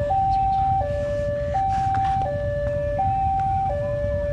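Electronic warning alarm of a railway level crossing sounding, a two-tone signal that steps between a lower and a higher note about every 0.7 seconds, warning of an approaching train. A steady low rumble runs underneath.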